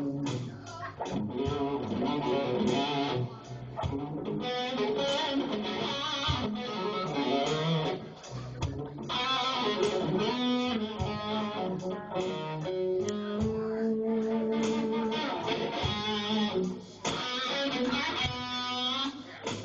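A band playing an instrumental passage, led by electric guitar over low bass notes and regular drum hits.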